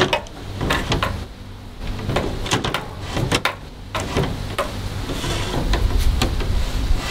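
Fiberglass fish tape being fed off its reel frame up through a hole in the soffit: irregular clicks, knocks and scraping as the rod slides through and rattles against the reel, over a low rumble.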